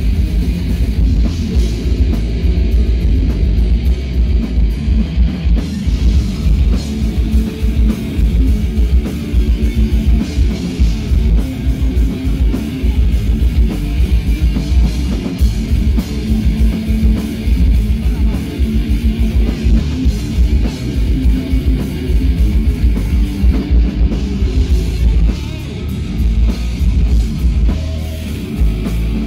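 Heavy metal band playing live: distorted electric guitars, bass and a drum kit with rapid kick-drum hits.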